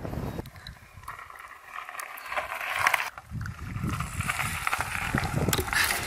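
Mountain bikes riding over a rocky trail: tyres crunching on stones and gravel, with irregular knocks and rattles from the bikes.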